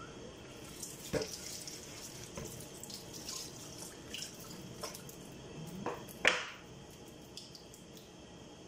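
Water splashing at a kitchen sink as plastic baby-bottle sterilizer parts are washed under the tap, with scattered clicks and clatter of the plastic, and one sharp knock about six seconds in.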